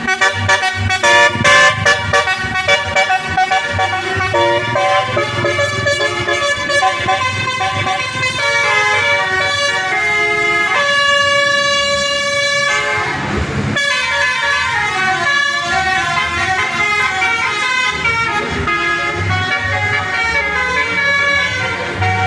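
Basuri V3 telolet musical air horn on a bus playing a stepping multi-tone melody, then holding one long chord for about two seconds before the tune resumes.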